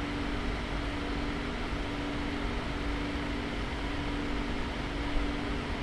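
Soldering fume extractor fan running: a steady hiss with a constant low hum.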